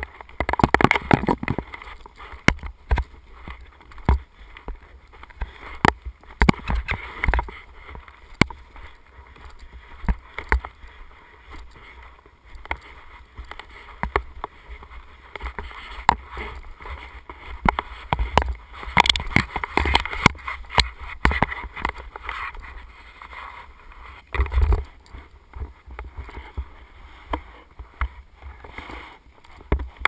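Snowboard sliding and scraping over firm, tracked-out snow, in uneven swells, with many irregular sharp knocks and clicks.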